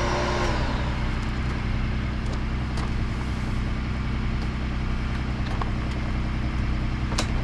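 Electric air-mattress deflator pump whining, then winding down and stopping about half a second in, leaving a vehicle engine idling with a steady low hum; a single sharp click near the end.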